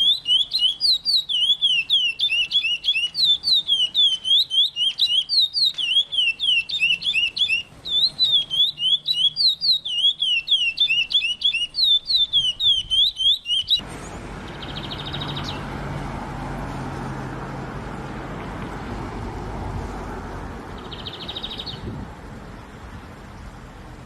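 A songbird singing a fast, unbroken run of repeated sweeping whistled notes, about four a second. About halfway through, the recording switches to a steady background hiss with two short, buzzy trills from a bird.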